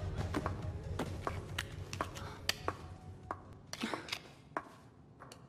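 High-heeled footsteps clicking on a hard floor, a sharp click every third of a second or so, growing sparser, over a low hum that fades out about halfway through.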